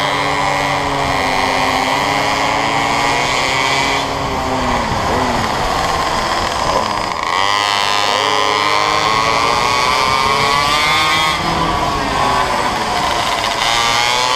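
Small mini-bike engines revving up and down as the bikes lap the track, the pitch rising on the straights and dropping into the corners, with more than one engine heard at once.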